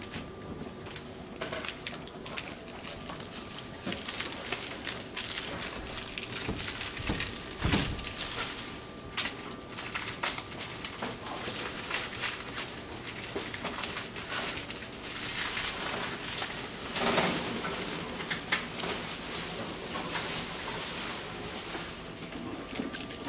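Boxer puppies scuffling at play on a tile floor: many scattered clicks and scrabbles of claws and toys, with a louder patch of scuffling a few seconds past the middle.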